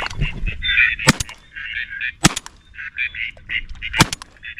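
Ducks quacking in quick runs of short calls, broken by three sharp cracks spread over about three seconds.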